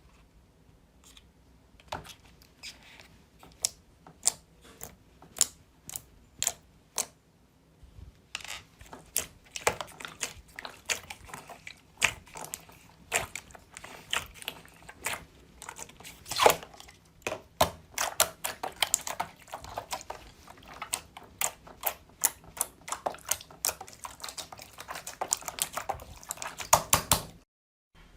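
Slime being worked by hand, making a run of sharp clicks and pops. They come singly about every half second at first, then turn fast and dense from about eight seconds in, and stop abruptly just before the end.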